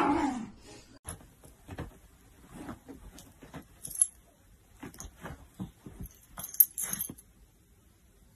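Light metallic jingling with scattered clicks and knocks, the sharpest about four seconds in and again near the end, after a short voice-like sound at the very start.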